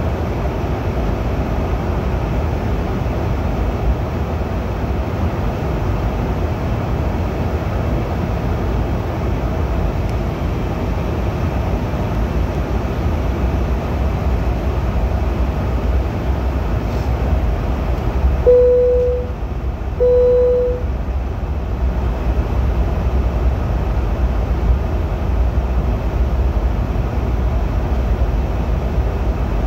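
Steady low rumble and hiss of airliner cabin noise. About eighteen and twenty seconds in there are two short cabin chimes at the same pitch.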